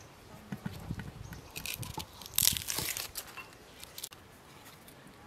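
Knife peeling the dry skin off an onion: the papery skin crackles and tears in short scratchy bits, loudest for about half a second around two and a half seconds in.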